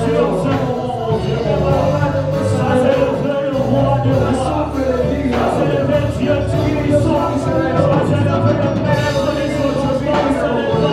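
Live worship music from a church band, with a steady bass line, regular drum and cymbal hits, and singing.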